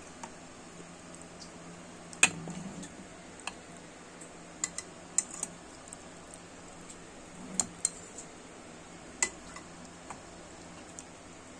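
Metal forks clinking against the pot and a china plate as pieces of boiled corn are lifted out of the cooking water: a scatter of sharp clicks, the loudest about two seconds in, with small splashes of liquid after a couple of them. A faint steady low hum underneath.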